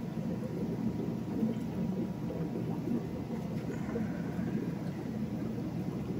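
Aquarium air stones bubbling steadily, a continuous low bubbling wash.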